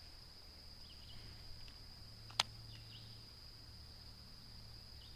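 Insects calling in one steady, unbroken high-pitched tone, with a single sharp click about halfway through.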